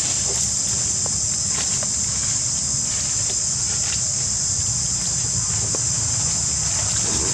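Steady high-pitched insect chorus of forest cicadas or crickets, with a few faint ticks in the leaf litter.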